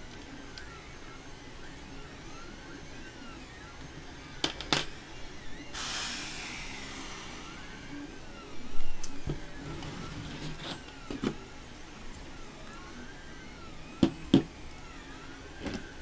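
A running 3D printer's stepper motors whining in repeated rising-and-falling sweeps as the print head moves back and forth, under the clicks, knocks and rustling of printer parts and cables being handled, with one loud knock about nine seconds in.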